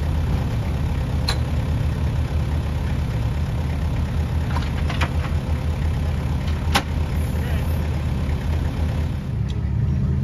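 A vehicle engine idles steadily, a low even rumble. A few sharp clicks and knocks come over it, about a second in, around five seconds and near seven seconds, as a camper's hitch is worked onto the pickup.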